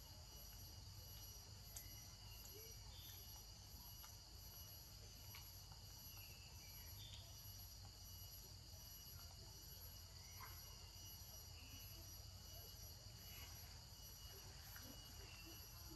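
Faint steady high-pitched drone of insects, with a few faint short chirps scattered through.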